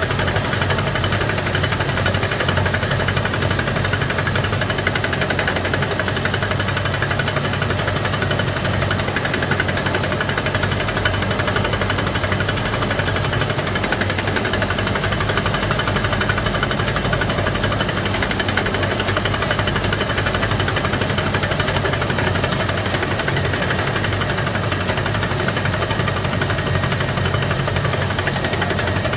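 Truck-mounted hydraulic percussion drill hammering steadily while boring a guardrail post hole, a rapid continuous pounding over the steady hum of the engine driving the hydraulics.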